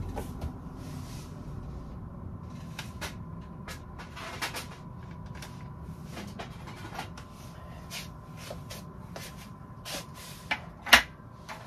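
Rummaging among plastic storage bins, boxes and bags: a string of small clicks, knocks and plastic rustles, with a sharper knock near the end.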